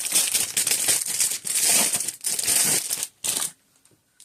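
Doll packaging crinkling and rustling loudly as it is handled and unwrapped by hand. The crinkling stops with one short last rustle about three and a half seconds in.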